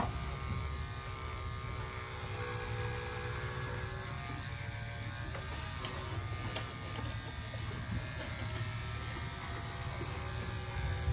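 Corded electric animal clippers running with a steady hum as they shear through a Nigerian dwarf goat buck's thick coat.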